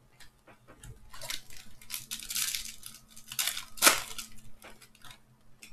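Plastic trading-card pack wrapper crinkling and tearing as it is ripped open: a run of crackles, loudest just before four seconds in.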